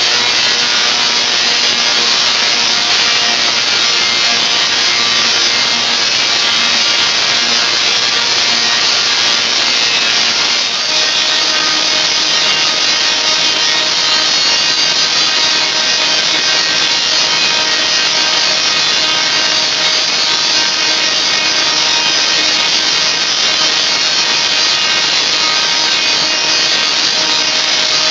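Tesla coil discharging: a loud, steady, buzzing rasp of sparks arcing from its toroid into the air, its pitch shifting slightly about ten seconds in.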